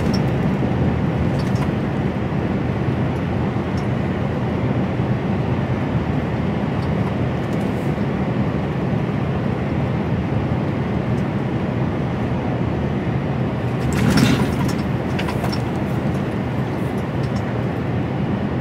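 Steady drone of an HGV lorry's diesel engine and road noise, heard inside the cab while driving, with a short knock about three-quarters of the way through.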